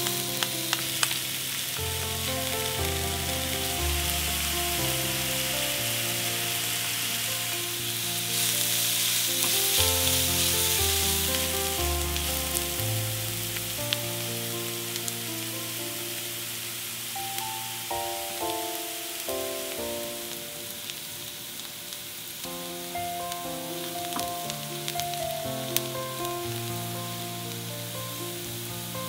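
Chopped onions sizzling as they fry in hot oil in a nonstick pan, loudest after the first several seconds and easing off later, with light clicks and scrapes of a spatula stirring them. Background music with a moving bass line plays under the sizzle.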